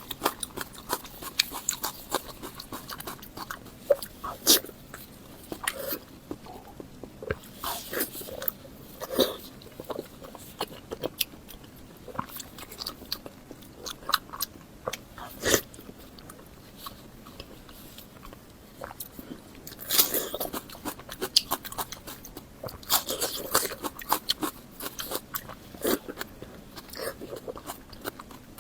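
Close-miked eating sounds: biting and chewing, a steady run of irregular sharp mouth clicks and crunches, with louder clusters about eight seconds in and again from about twenty seconds in.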